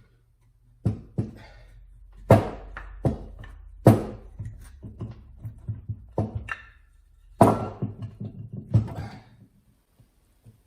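Metal knocks and clatter as a stuck drive chain and sprocket are worked loose from a snowblower gearbox casing: about eight sharp, irregular knocks with lighter clicks and rattles between them.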